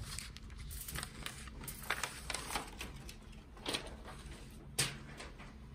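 Paper sewing pattern and cotton fabric being handled on a table: a series of short, irregular paper rustles as the pattern is lifted and moved, the loudest a little before the end.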